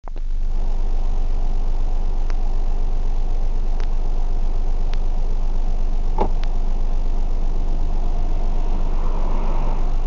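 Vehicle engine idling with a steady low rumble, heard from inside the cab, with a few faint clicks.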